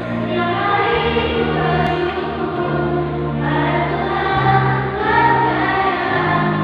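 Children's choir singing a song in long held notes, over low held notes of an accompaniment that shift in pitch every second or so.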